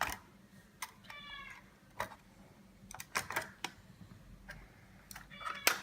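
A cat meowing twice in short high calls, about a second in and again near the end. Scattered sharp clicks and taps come from small screws and plastic parts of a car display unit being handled.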